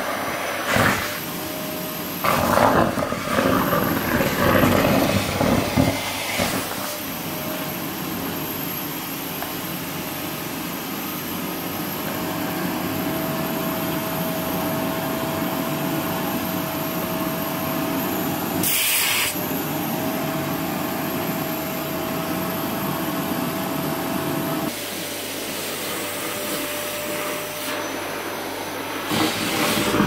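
Vacuum cleaner running with a steady motor whine as its floor nozzle sucks up wet food from a tiled floor, uneven and louder during the first several seconds. A brief sharp hiss comes about 19 seconds in, and the sound drops a little in level near 25 seconds.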